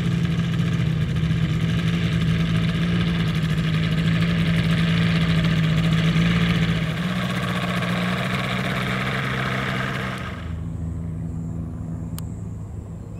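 Engine and propeller of a RevX weight-shift trike running steadily at low power as it taxis past. About ten seconds in the higher part of the sound cuts off suddenly, and a quieter, lower engine hum goes on.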